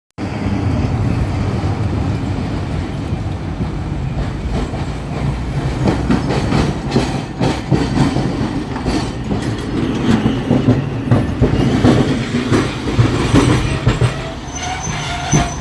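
Hakodate streetcar running along its rails: a steady low rumble with repeated clacks of the wheels over rail joints, and a thin wheel squeal near the end.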